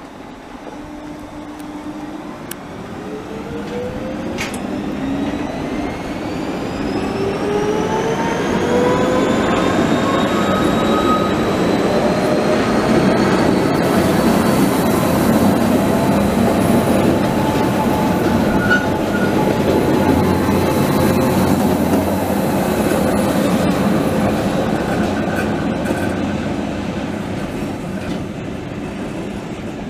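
Gornergrat Railway electric cogwheel train pulling out and running past. Its motors whine, rising in pitch over the first dozen seconds and then holding steady over the rumble of the cars on the rack track. It gets louder as the train passes close by, then fades as it moves off.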